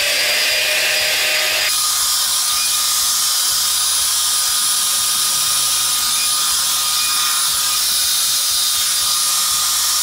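5-in-1 hot air styler, a Dyson Airwrap copy, running: a loud, steady rush of blown air with a thin high whine from its motor. About two seconds in, the sound changes abruptly and then holds steady again.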